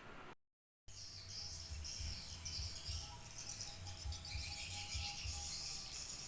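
High, dense chirping of insects, over irregular low thuds.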